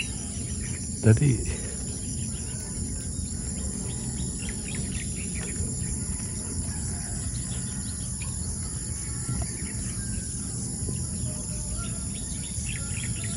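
Steady high-pitched chorus of insects shrilling in a grassy field, with a few faint bird chirps and a steady low rumble beneath.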